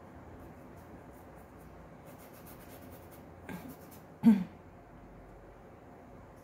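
Faint scratchy strokes of a paintbrush on cloth as acrylic paint is dabbed onto a fabric towel. About three and a half seconds in come two short voice sounds from the painter, the second much louder, like a throat clearing.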